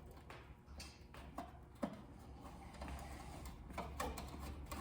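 Faint, scattered small clicks and scrapes of a screwdriver starting tiny screws into thin, old sheet metal, with one sharper click just under two seconds in.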